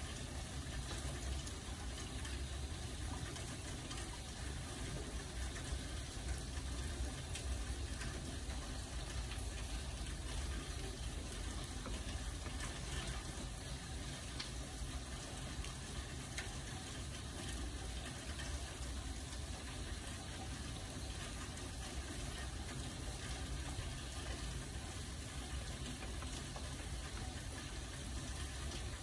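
Steady rain: an even hiss of falling water with a low rumble underneath and faint scattered drop ticks, unchanging throughout.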